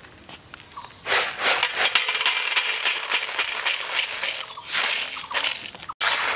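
Dry gram seeds (chickpeas) pouring in a dense, steady clatter of many small seeds landing, starting about a second in, tipped from a woven bamboo tray into a steel bowl. After a brief break near the end they pour again.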